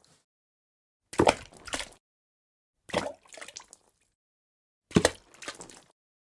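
Water dripping: a short cluster of drops plopping into water about every two seconds, three times, with dead silence between.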